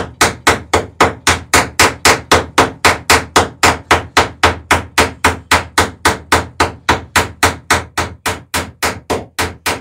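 Hammer peening over a rivet on the plank lap of a wooden dory, with a backing iron held against the rivet head. Rapid, even blows, about four a second, slightly softer toward the end.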